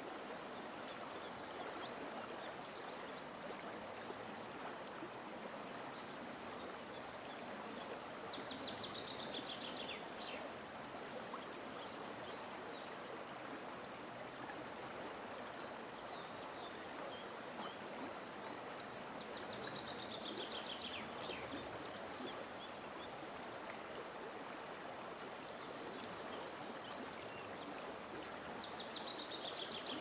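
The upper Volga flowing past the bank, a steady rush of running water. A songbird sings a short, rapid, falling trill three times, about every ten seconds.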